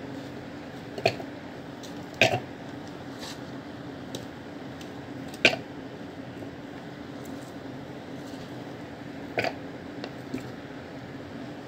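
Sliced banana pieces tipped from a bowl, dropping and knocking into a plastic mini-chopper bowl: about five short soft knocks at uneven spacing, the loudest about two and five and a half seconds in, over a steady low hum.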